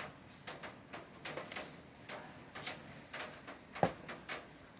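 Wireless intrusion alarm panel giving two short, high-pitched electronic beeps, one at the start and one about a second and a half in. Light clicks of handling and button presses run through it, with a single knock near the end.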